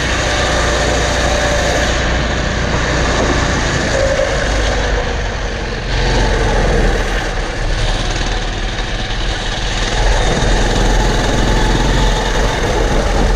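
An engine of a harvest vehicle or machine running steadily, with a deep low hum and a little louder from about halfway through.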